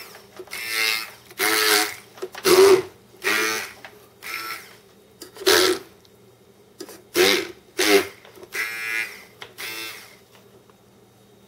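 Handheld immersion blender run in short bursts of under a second, about ten times, its small motor whirring as it purées boiled cauliflower in a stainless steel saucepan. The bursts stop about ten seconds in.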